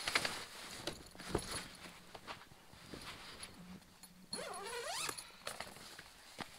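Pop-up hub ice fishing shelter being set up: fabric rustling and several sharp clicks and knocks as the hubs are pushed out. About four seconds in there is a short rising whine.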